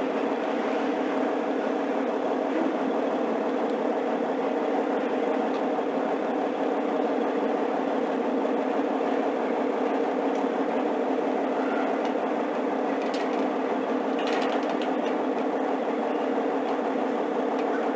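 Steady mechanical drone of machinery running, unchanging throughout, with a few faint clicks near the end.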